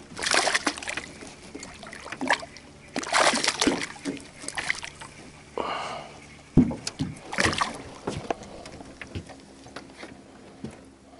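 Bass thrashing and splashing at the water's surface beside the boat as it is hand-landed by the lip, in several bursts of splashing, with one sharp knock past the middle.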